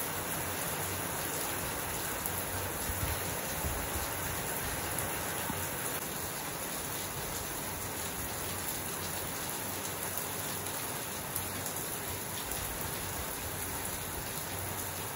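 Steady rain falling, pattering on the yard and plants.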